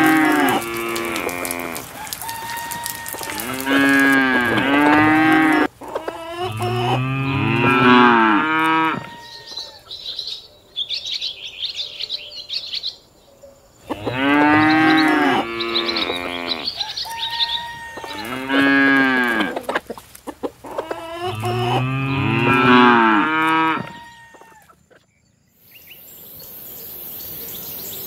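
Cattle mooing in loud runs of calls, the same run repeating about halfway through, with a stretch of high chirping between them. The calls stop near the end.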